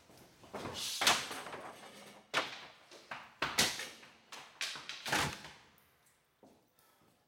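A run of sharp knocks and bangs, each ringing out briefly, dying away after about six seconds.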